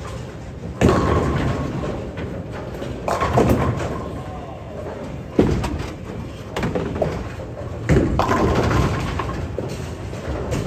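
Bowling alley: balls rolling and crashing into pins, about four sudden impacts a couple of seconds apart, each followed by a fading clatter and rumble in a large echoing hall.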